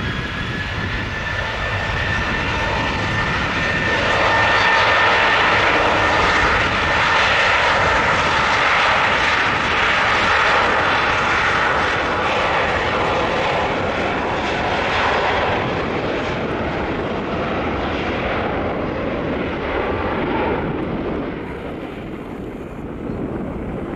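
Boeing 737's twin jet engines at takeoff thrust during the takeoff roll: a steady whine over loud jet noise, which swells about four seconds in and eases off in the last few seconds.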